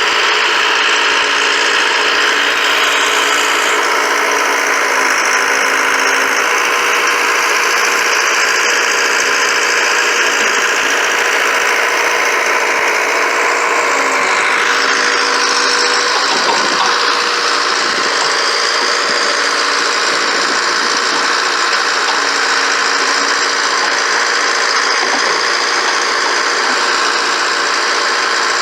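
Allis-Chalmers 715C backhoe's engine running steadily as the machine digs, with a change in its tone about halfway through.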